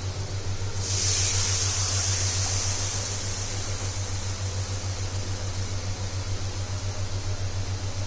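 Buttermilk and gram-flour batter poured into hot spiced oil in a kadai: it hits the pan about a second in with a sharp sizzle that slowly eases to a softer hiss. A steady low hum runs underneath.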